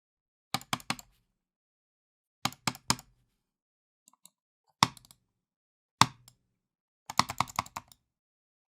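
Computer mouse handled angrily: sharp, hard clicks in short bursts of three or four, two single loud knocks in the middle, and a fast flurry of about ten clicks near the end.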